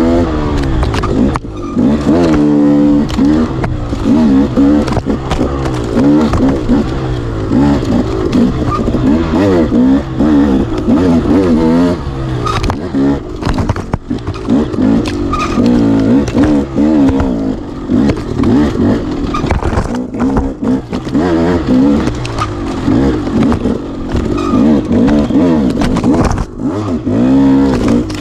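Enduro dirt bike engine revving up and easing off again and again, its pitch climbing and falling every second or two as the throttle is worked.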